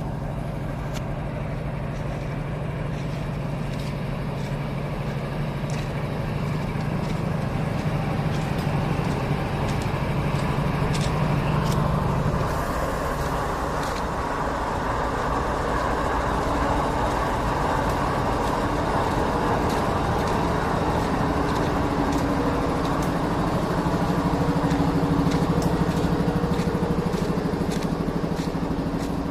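BNSF diesel locomotive engines running with a steady low drone; about twelve seconds in the engine note shifts and a higher hum comes in.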